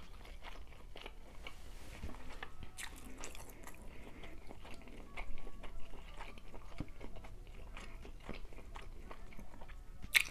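Close-up eating sounds: chewing snow crab meat, with soft wet smacks and small irregular crunches and clicks, a few louder ones now and then.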